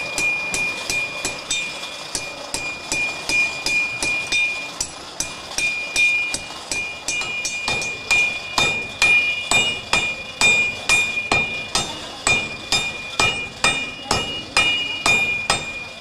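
Blacksmith's hammers striking red-hot iron on an anvil in a steady rhythm of about two to three blows a second, each blow leaving a bright metallic ring. The blows grow louder about halfway through.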